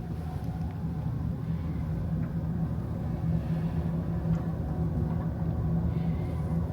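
Steady low hum of a ferry's onboard machinery, heard from inside a passenger cabin.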